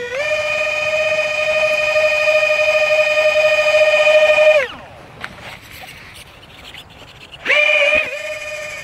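The four small electric ducted fans of a toy RC Boeing 747 whining at full throttle: a steady high whine with overtones that is the model trying to take off from grass and failing. A little past halfway the fans cut out and the pitch falls away. Near the end they spool up again sharply and then ease.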